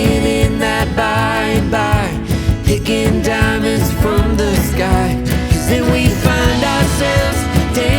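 Country-pop song playing, with guitar over a steady beat and a wavering melody line.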